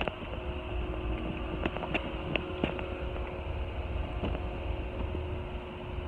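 Steady low outdoor rumble with a faint steady hum, broken by scattered light clicks and taps from a hand-held phone.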